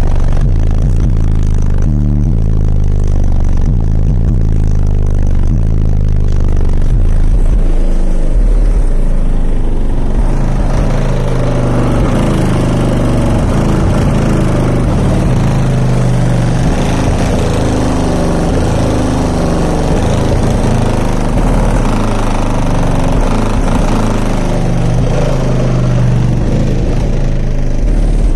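Loud bass-heavy music played through a single Resilient Sounds Team 18 subwoofer in a sixth-order bandpass enclosure, heard from outside the vehicle. The deep bass line steps between low notes throughout.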